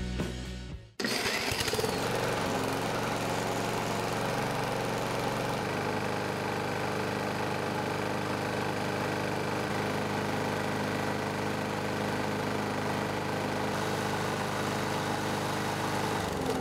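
Walk-behind lawn mower's small single-cylinder engine running steadily, cutting in suddenly about a second in as music ends. Its crankcase oil is thinned with diesel, one part to four of oil.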